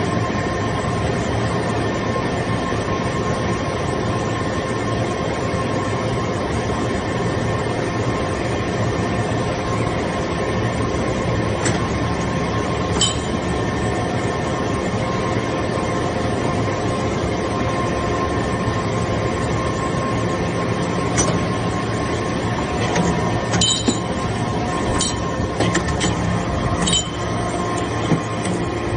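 Hydraulic shaving baler running: a steady machine hum with several constant tones, with a few sharp metallic clinks in the second half.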